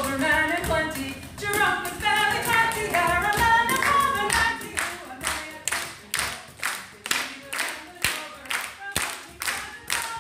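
Voices singing an Irish folk song with little or no instrumental backing, then from about four and a half seconds in, steady hand clapping in time at about two claps a second, with the singing fainter beneath it.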